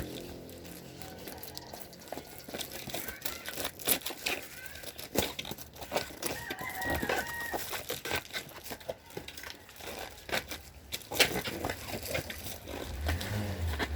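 Packaging being handled: scattered sharp clicks and rustles from the box and its contents. About seven seconds in comes a short pitched animal call.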